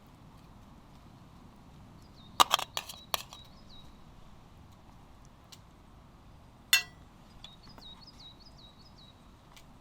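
A few sharp clinks: a quick cluster of them about two and a half seconds in and a single louder one near seven seconds. A small bird sings short repeated chirps in between and after.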